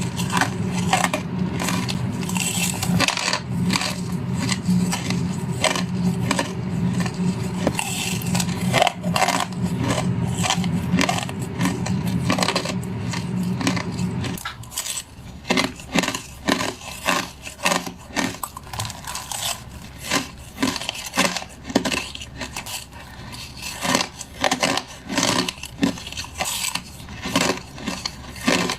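Crushed ice being bitten and chewed: a fast, irregular run of crisp crunches, several a second. A steady low hum runs underneath and cuts off about halfway.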